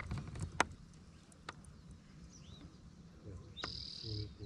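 Quiet lakeside ambience with faint bird chirps, a few sharp clicks, and a brief high whistle-like note a little before the end.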